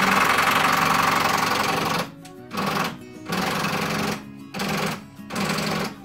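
A handheld power tool, such as a cordless ratchet or driver, run in one long burst of about two and a half seconds, then four short bursts, while the battery is being worked on.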